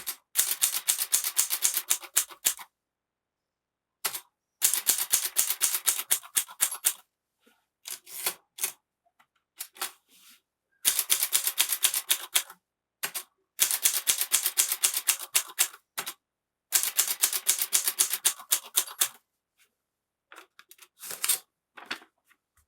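Groma Kolibri ultra-thin portable typewriter being typed on: runs of quick keystrokes, each run about two seconds long, broken by short pauses. Near the end there are a few scattered strokes.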